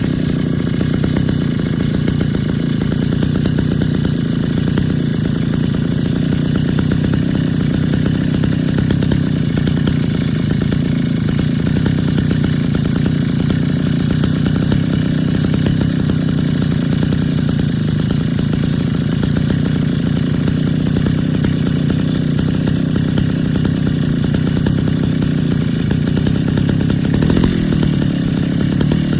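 Kawasaki TD48 small two-stroke engine running steadily after its renovation, briefly louder near the end.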